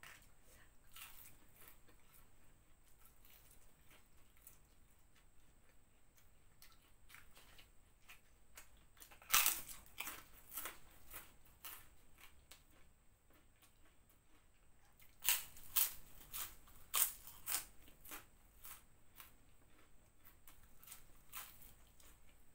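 A person eating crispy fried snacks close to a clip-on microphone: prawn crackers and corn-and-shrimp fritters (bakwan jagung) crunching as they are bitten and chewed. The loudest crunches come in two clusters, about nine seconds in and again from about fifteen to eighteen seconds, with softer chewing crackles between.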